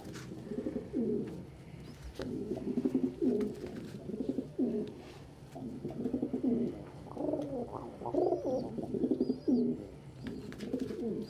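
Domestic pigeon cooing over and over, a low coo phrase roughly every second. Faint high chirps from another bird come in during the second half.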